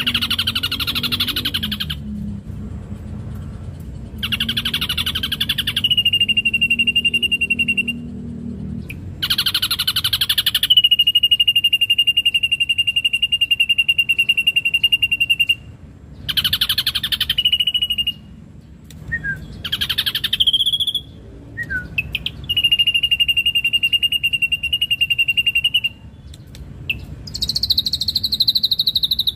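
Ashy drongo singing loudly: harsh, buzzy rasping phrases alternating with long, level whistled notes, each held for several seconds. Near the end a higher, shriller note comes in.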